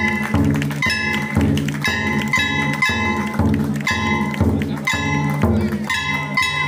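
Large Japanese ōdaiko barrel drum beaten in a steady rhythm, about two strokes a second, each stroke ringing on low. A higher ringing tone keeps time along with the drum.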